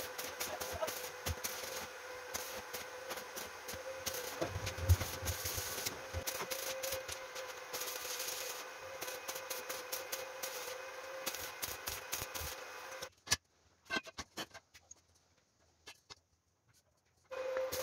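Electric arc welding on a steel tube frame: the arc crackles and sputters steadily, then stops abruptly about thirteen seconds in, leaving a few light clicks and taps.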